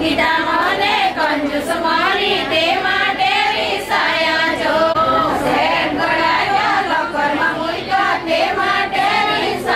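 Women's voices singing a song together in chorus.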